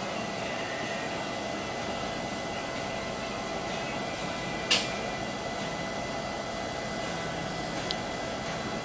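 Small electric motor running steadily with an even hum, with one sharp click about halfway through.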